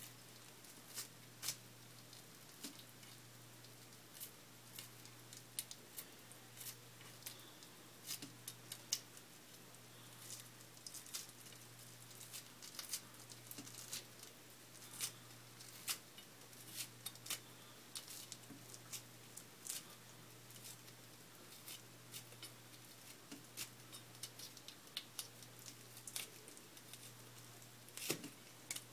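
Kitchen knife working the skin off a small bluegill fillet on a plastic cutting board: irregular small clicks and taps of the blade against the board and skin, over a low steady hum.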